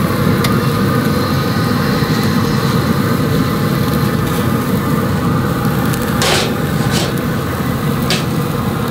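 Steady low rushing noise of a pellet grill running hot for direct searing, with a steak cooking under a steel steak press. A few sharp metal clinks about six to eight seconds in as the press is lifted off the grate.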